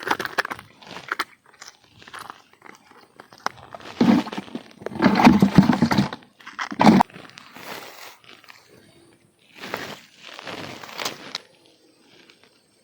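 Irregular bursts of rustling and crunching, loudest about four to six seconds in, with shorter bursts near seven seconds and again around ten to eleven seconds.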